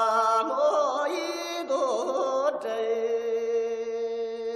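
Background music: a chant-like voice sliding between notes, then settling into a long held note over a steady drone.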